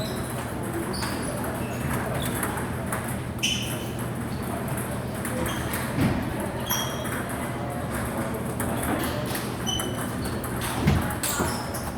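Table tennis balls clicking off paddles and tables in short, high pings at irregular intervals, from rallies across the hall. Low background chatter and hum run underneath.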